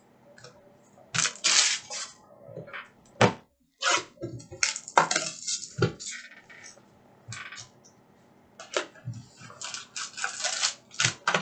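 Hands handling trading card packs and a cardboard box: irregular rustles, taps and light clatters, in clusters with short pauses between.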